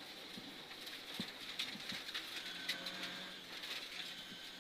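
Rally car driving at speed on a gravel stage, heard from inside the cabin: a faint steady engine note under irregular clicks and knocks from loose gravel against the car.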